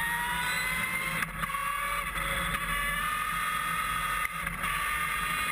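Motorcycle accelerating on a race track, heard from onboard: its steady whine climbs slowly in pitch, drops back sharply about a second in and again a little past four seconds in, then climbs again.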